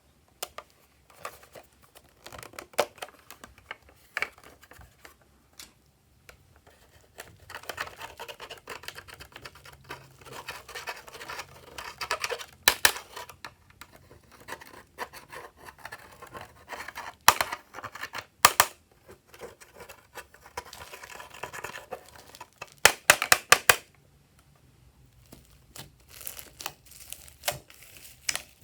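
Glossy slime being squished, stretched and pressed by hand, making crackly, sticky sounds with clusters of sharp clicks and pops, the loudest about halfway through and again about three quarters through.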